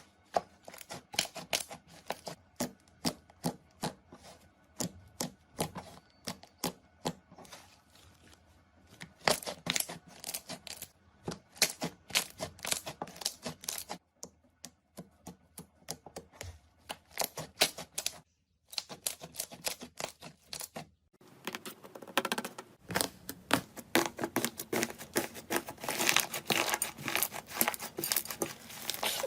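Slime being squeezed, poked and stretched by hand: a run of sharp crackles and pops with a few short pauses, turning into a dense, louder crackling near the end.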